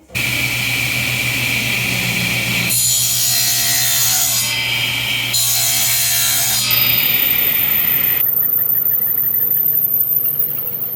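Power saw running and cutting ebony into pen blanks: a steady motor hum with a hissing cut that grows stronger twice as the blade goes through the dense hardwood.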